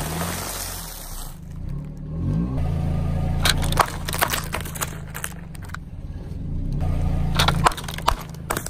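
Car running slowly at low revs as its tyre rolls over and crushes things. First comes a crackling crunch of a snack bag, then, about a third of the way in and again near the end, sharp cracks and pops of plastic jelly cups bursting under the tyre.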